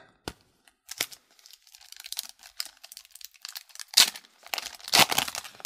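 Wrapper of a Tim Hortons Upper Deck hockey card pack crinkling in the hands and being torn open, with scattered small crackles and two louder tears near the end.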